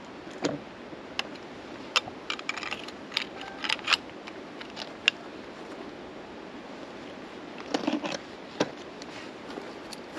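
Ice tool picks and crampon points on rock during mixed climbing: scattered sharp clicks and scrapes, busiest in the first four seconds and again about eight seconds in.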